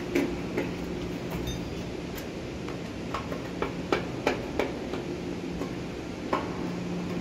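Steady low machinery hum with about ten irregular sharp knocks and taps, the kind made by work on metal parts.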